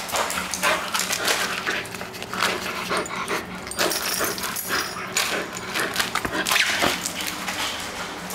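Bull terrier playing on a tiled floor: quick noisy breaths and snuffles mixed with its claws clicking and scrabbling on the tiles, in a dense irregular run of short sharp sounds.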